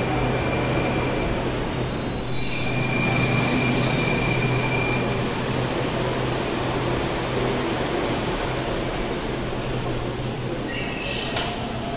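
Moscow Metro train at the platform, its electrical equipment giving a steady low hum. A brief high-pitched squeal comes about two seconds in, and a short series of high tones comes near the end.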